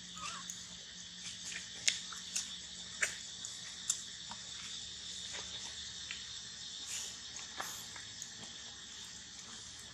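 Steady insect chorus, a high even buzz, with a few sharp clicks and rustles, most of them between about two and four seconds in.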